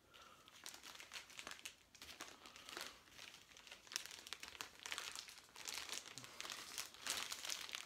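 Clear plastic sleeve crinkling and rustling as a fishing rod is slid out of it and unwrapped: irregular faint crackles, louder near the end.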